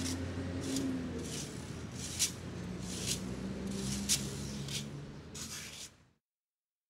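A broom sweeping over pavement in short, repeated scratchy strokes, roughly one every half second, over a low steady background hum. The sound cuts off abruptly about six seconds in.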